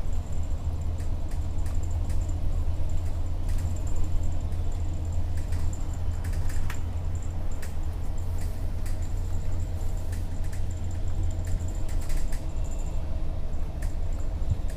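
Steady low rumble inside a moving vehicle, with scattered light clicks and rattles and a faint on-and-off high whine.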